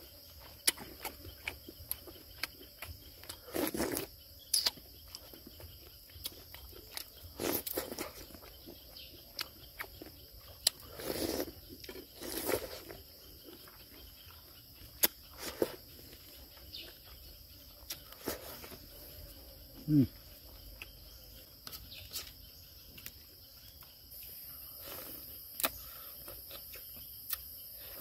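Steady high chirring of insects, with scattered sharp clicks and knocks and a few short rustles of handling, and one brief low falling sound about twenty seconds in.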